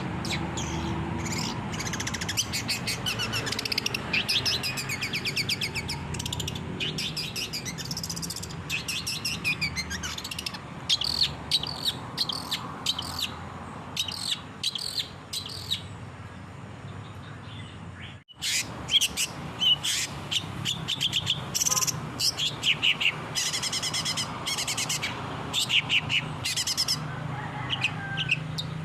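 Long-tailed shrike singing a fast, scratchy chattering song of rapid repeated notes and trills, with a steady low hum underneath. The sound cuts out sharply for a moment about 18 seconds in, then the song picks up again.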